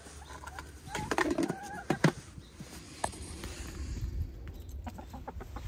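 Hens giving soft, pitched calls with short glides about a second in, followed by a few sharp knocks around two and three seconds in, then small ticks as they peck at feed on the ground.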